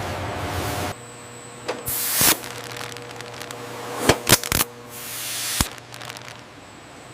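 Steady factory machine noise cuts off about a second in. It is followed by two swelling hisses of air, each ending in a sharp click, with a few separate clicks between them.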